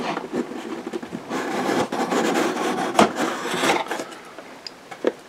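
Cardboard lid of a plastic model kit box being slid off its base, a dry rubbing scrape of cardboard on cardboard with one sharp knock about three seconds in, then quieter handling.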